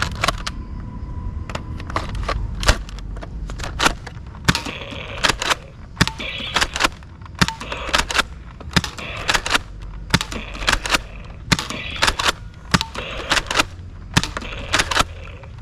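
Toy guns being fired: a long run of sharp clicks and pops, about two or three a second at uneven spacing.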